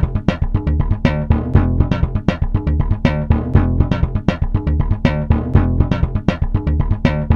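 Background music: plucked guitar and bass over a steady beat.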